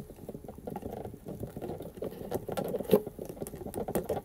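Hands handling an epoxy-coated cardboard boat hull, a dense rustle of small taps and scrapes with one sharper click about three seconds in.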